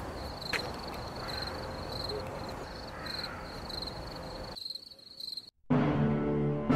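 Cricket chirping sound effect: a high, evenly pulsing chirp over a low hiss, which cuts off about four and a half seconds in. After a moment of silence, music begins near the end.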